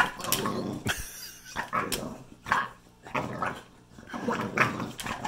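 English bulldog vocalizing in a string of about six short bursts, begging for bacon.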